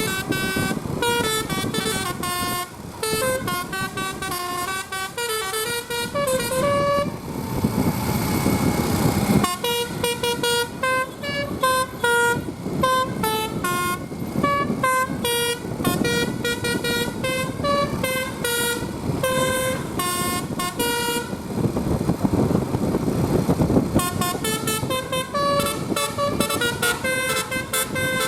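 A bus's Basuri-type telolet horn, a multi-tone air horn, playing a fast melody of short stepping notes. It breaks off twice, once about a third of the way in and again near the end, and a rushing noise fills each break.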